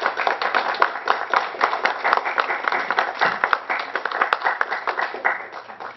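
Small audience applauding, a dense run of hand claps that thins out and tapers off near the end.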